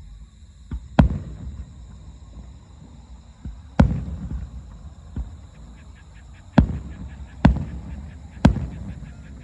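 Aerial firework shells bursting: five loud booms about a second or two apart, with three smaller reports between them, each boom trailing off in a rumbling echo.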